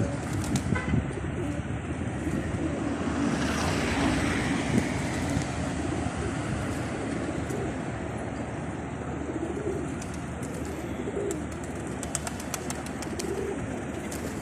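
A large flock of feral pigeons feeding, with low, wavering coos overlapping again and again, and scattered short clicks.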